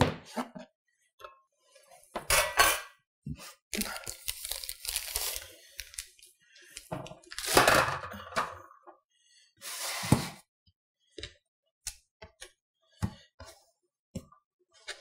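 Metal bench scraper chopping down through bread dough onto a cutting board with a sharp knock at the start. Then kitchen handling noises: rustling, scraping and clinking, and a few soft taps near the end as dough pieces are set on a metal sheet pan.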